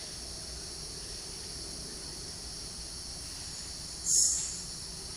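Steady, high-pitched chorus of forest insects such as crickets or cicadas. About four seconds in, a loud high-pitched burst lasts about half a second and then fades.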